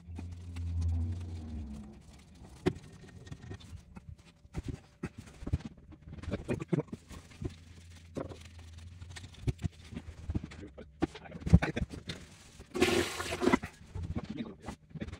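Plastic toilet seat being unbolted and lifted off the bowl: scattered clicks and knocks of the hinge bolts, plastic and porcelain being handled, with a short loud rushing scrape near the end.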